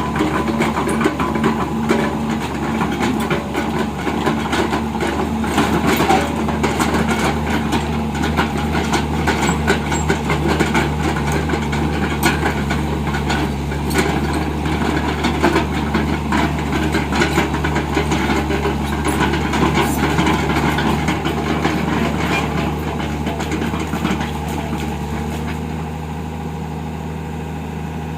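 Heavy diesel engine of a Tata Hitachi excavator running steadily, with scattered irregular knocks and clanks, growing a little quieter near the end.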